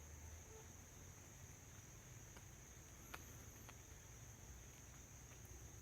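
Faint, steady high-pitched chorus of crickets, with a few faint ticks of raindrops falling on leaves.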